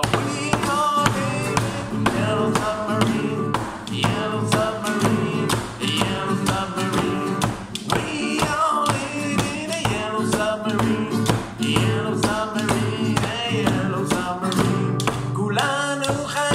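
Acoustic guitar strummed while several voices sing along, with regular rhythmic tapping keeping the beat.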